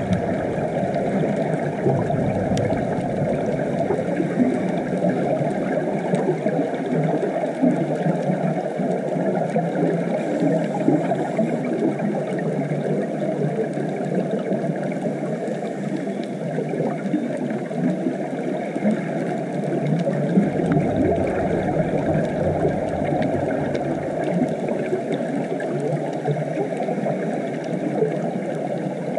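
Muffled underwater ambience heard through a GoPro's waterproof housing: a steady low rush of water, with a deeper rumble swelling about two-thirds of the way through.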